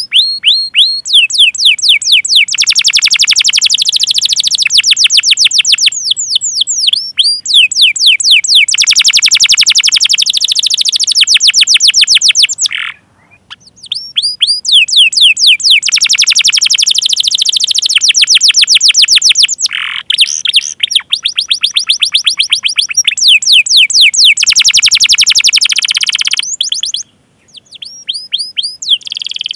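Canary singing long, rapid rolling trills of fast repeated down-sweeping 'cuit' notes, breaking off briefly twice.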